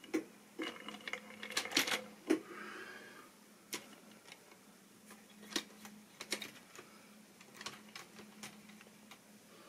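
Irregular clicks and clacks of model railway tank wagons being handled and shifted by hand on the track, thickest in the first couple of seconds and then sparser, over a faint steady hum.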